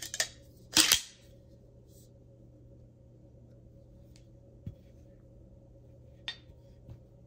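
Sharp metal clicks, then a louder metallic clatter about a second in, followed by a few single light taps: a Swiss Model 1889 bayonet being handled.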